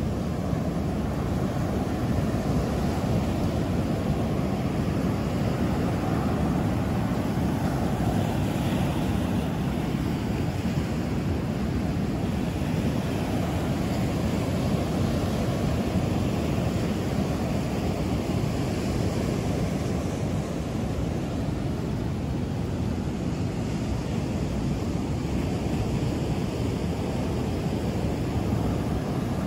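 Ocean surf washing onto a sandy beach, a steady rush without pause, with wind rumbling on the microphone.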